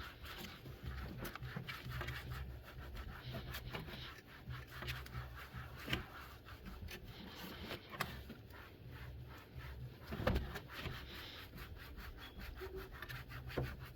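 A vinegar-soaked cloth rubbed back and forth over a 3D printer's build plate to clean it, with a few light knocks, the loudest about ten seconds in.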